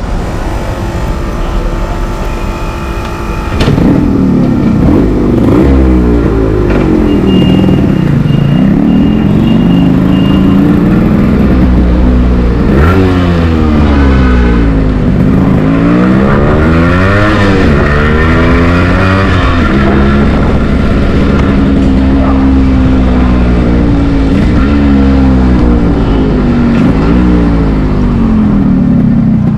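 Yamaha RX100's two-stroke single-cylinder engine on the move. It runs steadier and quieter for the first few seconds, then gets louder about four seconds in and revs up and drops back again and again as the rider accelerates and changes gear.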